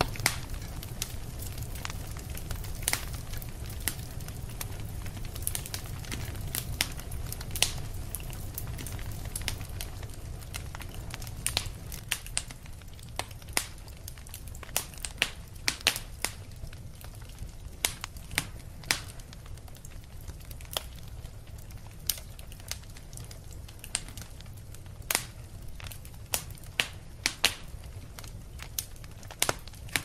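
Wood fire crackling in a fireplace: irregular sharp pops and snaps over a steady low rumble.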